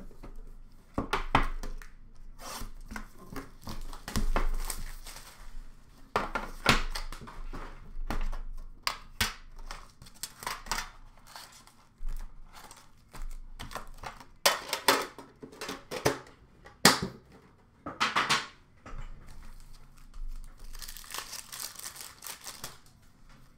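Upper Deck hockey card boxes and packs being opened by hand: irregular tearing and crinkling of pack wrappers and cardboard, with several sharp rips.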